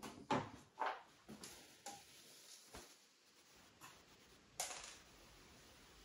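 Light knocks and bumps of a bathroom vanity cabinet being shifted into place, several in the first two seconds. Then quieter handling clicks and one sharper knock a little after the middle, as PVC drain fittings and a cement can are handled.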